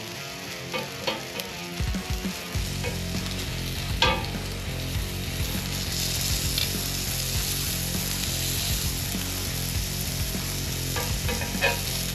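Oil sizzling steadily in a cast iron skillet as a sesame-crusted fish loin sears. Metal tongs click against the pan a few times, most sharply about four seconds in and again near the end, as the loin is gripped and turned.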